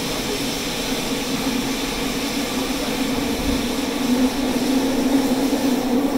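Cabin noise inside a Fukuoka City Subway 2000N series train running between stations: a steady rumble with a constant low hum, growing slightly louder about four seconds in.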